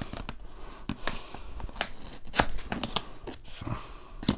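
Hands handling and opening a cardboard box: irregular scraping, tapping and rustling of cardboard, with a few sharper clicks.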